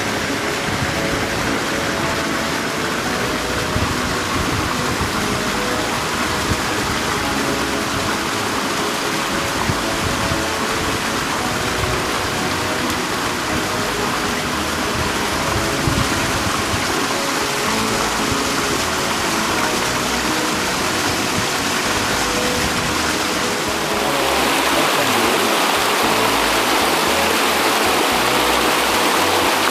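Mountain river water rushing steadily, turning to louder white-water rapids over rocks about 24 seconds in. Background music plays faintly underneath.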